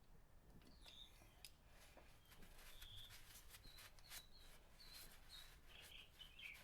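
Near silence, with faint high bird chirps and a scattering of light clicks.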